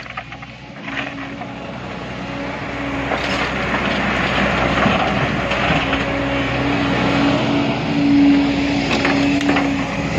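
Engine of heavy construction machinery running and building up in loudness, at its loudest about eight seconds in, with a few faint knocks over it.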